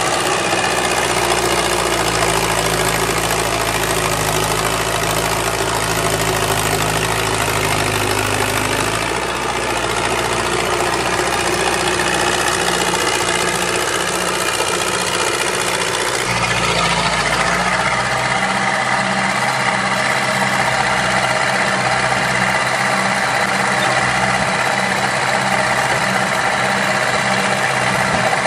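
Diesel engine of an old crawler track loader running under load as it digs and lifts a bucket of dirt. Its engine note changes pitch about a third of the way in and again a little past halfway.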